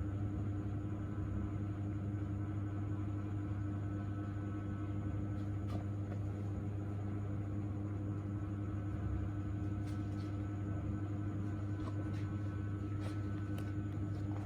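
Steady low machine hum with a few faint higher tones, and several faint clicks from about ten seconds in.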